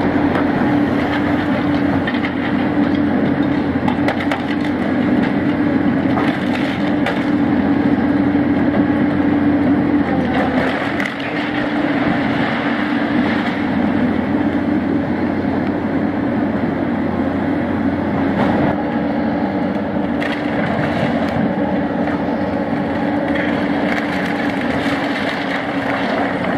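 A heavy demolition machine's diesel engine running steadily, with timber cracking and splintering at intervals as the building's wooden structure is broken up.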